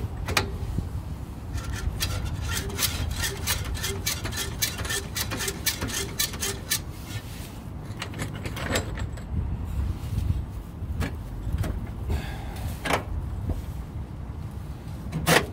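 Metal clicks and clanks from handling a floor jack and wiggling loose the old stock exhaust of a VW Type 3 engine: a run of quick small clicks in the first half, then a few sharper knocks, over a steady low rumble.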